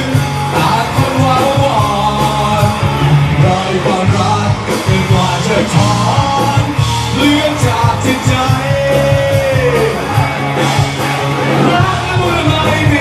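Rock band playing live with drums, and a male singer singing loudly into a microphone over the band.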